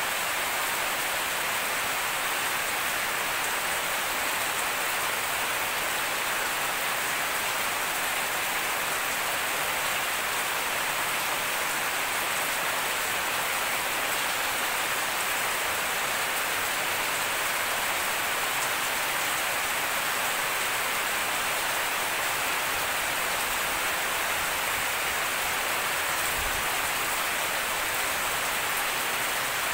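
Steady rain falling on grass, leaves and puddled ground, an even hiss that holds at one level throughout.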